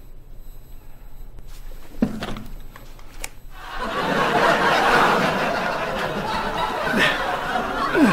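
Studio audience laughter (a sitcom laugh track) swelling up about halfway through and carrying on, after a couple of short knocks.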